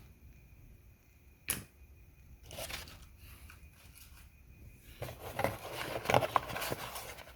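A small cardboard accessory box being opened by hand: one sharp click or snap about a second and a half in, then the rustling and clicking of cardboard flaps and packaging being handled, busiest over the last two seconds.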